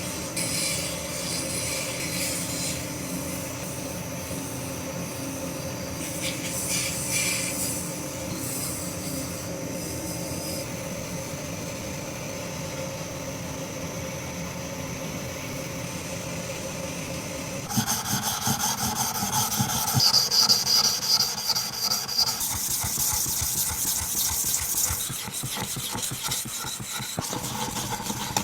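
A rusty, uneven hand-plane blade being sharpened: steel rubbed back and forth in rapid scraping strokes. About eighteen seconds in the strokes turn louder and brighter.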